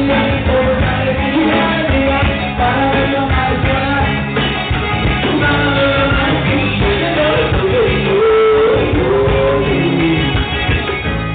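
Forró band playing live with a lead singer: a vocalist over accordion, guitar, bass, zabumba, triangle and drum kit.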